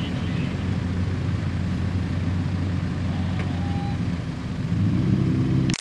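Car engines idling at a drag strip start line, a steady low running note that revs up in pitch near the end.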